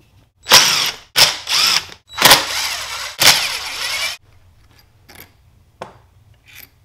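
DeWalt cordless impact driver with a hex bit backing out the Allen head screws on a winch's end housing. It runs in four short bursts of under a second each, followed by a few light clicks.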